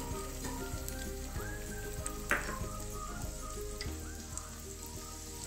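Chopped onion sizzling in hot oil in a kadhai, a steady light frying hiss with scattered crackles and one sharp pop a little past two seconds in, over background music.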